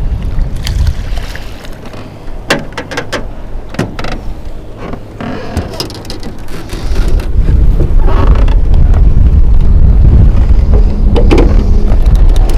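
Wind buffeting the microphone: a low, gusty rumble that grows much louder about halfway through, with scattered sharp clicks and knocks over it.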